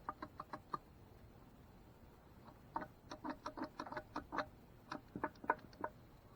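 Faint, irregular light clicks and taps, as of parts of an opened manual transmission being handled and turned: a short run of about six at the start, then a denser run of a dozen or more from about three seconds in to near the end.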